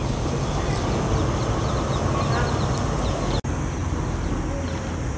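Steady outdoor city ambience with a low rumble and faint bird chirps. The sound drops out for an instant about three and a half seconds in.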